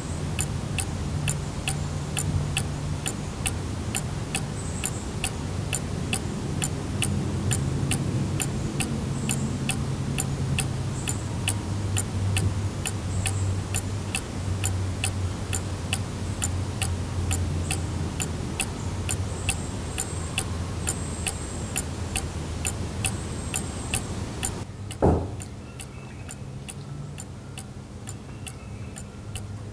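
Cuckoo clock's 8-day Regula mechanical movement ticking steadily, about two ticks a second, over a low hum. About 25 seconds in there is a single thump, after which the ticking stops and only a quieter hum remains.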